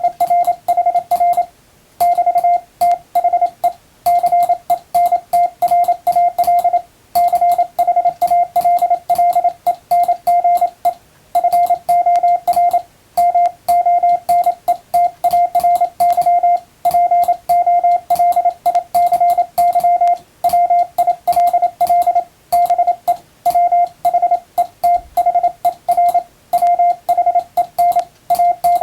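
Morse code sent with an electronic keyer: one steady-pitched beep keyed rapidly on and off in dots and dashes, spelling out plain English text at a fairly fast speed, with short pauses between words.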